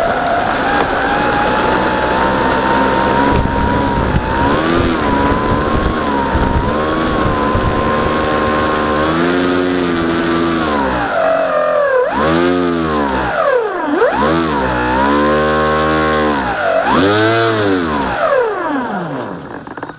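Brushless electric motor and propeller of a Ranger EX RC model plane running with a steady whine, then throttled up and down about five times in the second half before fading out.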